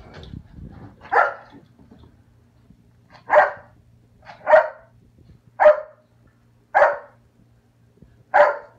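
A puppy barking at a cat: six single barks, spaced roughly a second or two apart.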